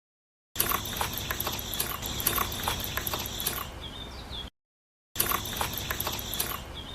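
Small geared mechanism of a miniature model running, with irregular gear clicking over a steady whir. It comes in two stretches, each cut off abruptly to dead silence.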